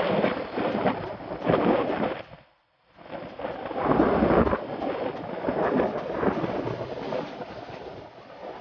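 Rumbling, gusty wind noise buffeting the microphone of a camera riding along on a bicycle. It cuts out to near silence for about half a second, a little over two seconds in.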